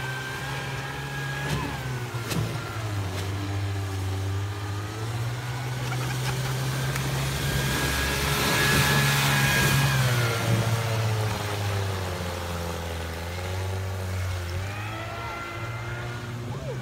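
1960s 15 hp Evinrude two-stroke outboard motor running hard on a jon boat that is carving circles. Its pitch dips and rises as the boat turns and passes. It is loudest about eight to ten seconds in, with a rush of spray as the boat sweeps close.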